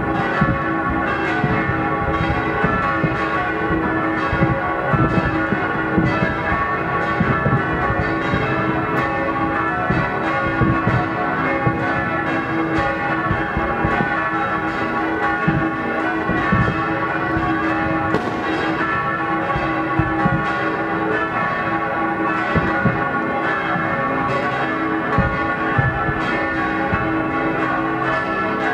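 Church bells ringing with many bell tones overlapping and sounding continuously, with frequent low bangs of New Year's fireworks underneath.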